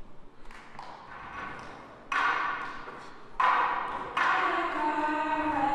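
Glass cup knocked on a tabletop: a few sharp knocks, each with a ringing ping, the start of a cup-game rhythm. Steady ringing tones hold on near the end.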